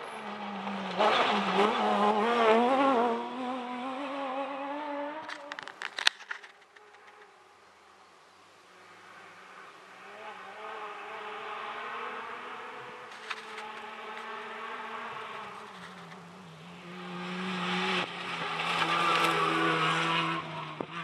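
Cross-country rally cars on a dirt stage: a rally car's engine revs hard past close by, its pitch rising and falling with the throttle. About six seconds in there is a sharp rattle of clicks. After that a 4x4 rally truck's engine is heard far off, grows louder and comes close near the end.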